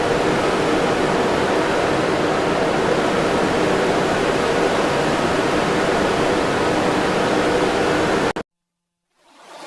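Steady, loud, static-like rushing noise with faint held tones beneath it, cutting off abruptly about eight seconds in to dead silence, then another burst of noise swelling back in at the very end.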